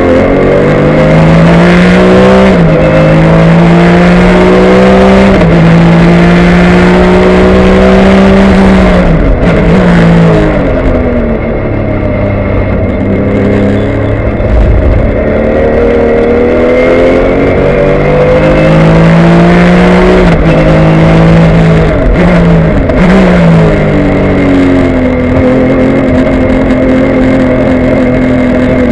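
2003 Porsche 996 GT3 Cup's flat-six engine at racing speed, heard from inside the cockpit. The engine note climbs and drops back at each upshift. It falls away through downshifts under braking about ten seconds in and again a little after twenty seconds, then pulls up through the gears once more.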